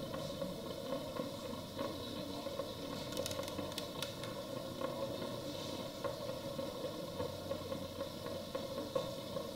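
Steady hum and hiss of a running facial steamer, with a few light clicks about three to four seconds in as its arm is handled.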